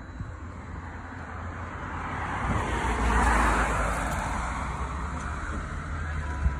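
A car passing on the street: its tyre and engine noise builds to a peak about three seconds in and then fades, with a low rumble beneath. A brief knock near the end.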